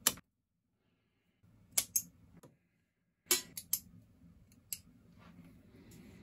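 Bonsai branch cutter snipping through a small woody branch with a sharp snap. The snap is followed by about half a dozen more short snips and clicks: two close together about two seconds in, a quick run of three a little over a second later, and a fainter one after that.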